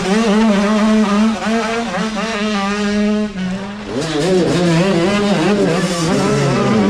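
Youth dirt bike engines revving hard as the bikes ride through a shallow creek, water splashing. One engine's pitch climbs and then holds; about four seconds in it gives way to another bike's wavering, on-and-off throttle.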